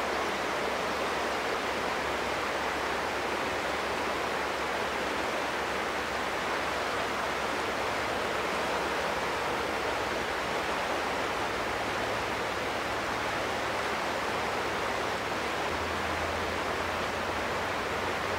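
Steady rushing of a fast-flowing river close by, with a faint low hum underneath that strengthens slightly near the end.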